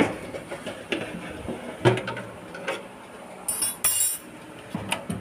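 Metal baking tray and oven rack clinking and knocking as the tray of cookie dough is handled with tongs and slid into the oven, with a short metallic scrape about three and a half seconds in. The knocks come about a second apart, the loudest about two seconds in.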